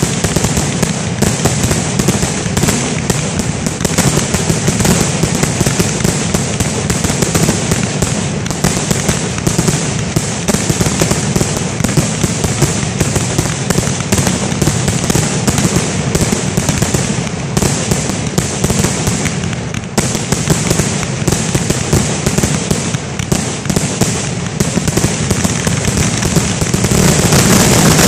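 Fireworks display in a dense, unbroken barrage of bangs and crackling shell bursts, growing loudest near the end.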